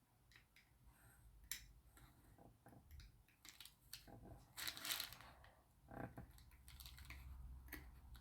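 Faint, scattered clicks of small metal tools and parts on a pocket watch movement as its bridge is seated, with a short scraping rustle about five seconds in.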